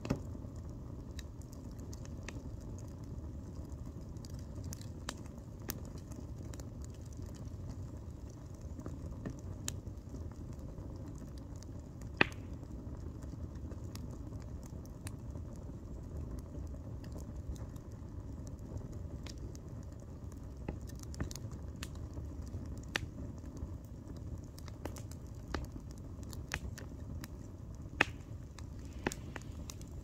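Log campfire burning and crackling, with scattered sharp pops, the loudest about twelve seconds in and again near the end, over a steady low rumble.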